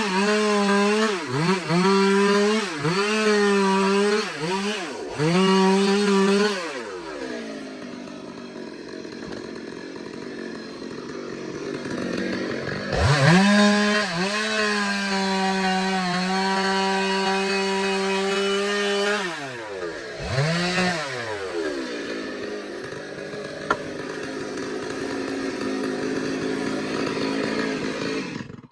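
Stihl two-stroke chainsaw ripping a log lengthwise into planks, its engine speed dipping and recovering several times under load. It drops to a lower, rougher speed for a few seconds, climbs back to a high steady pitch about thirteen seconds in, dips again around twenty seconds, and cuts off suddenly at the end.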